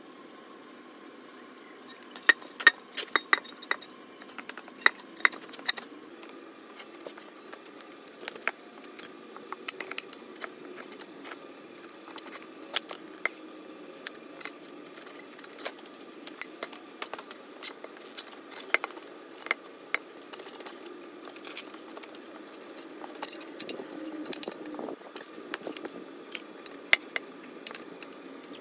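Irregular light metallic clinks and jingles as a car tyre is forced by hand onto an alloy wheel rim.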